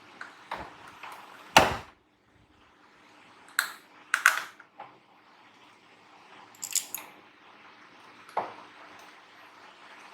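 Scattered sharp clicks and knocks of small tools and parts being handled on a workbench, about half a dozen in all, over a faint steady hum. One near the middle has a brief metallic ring.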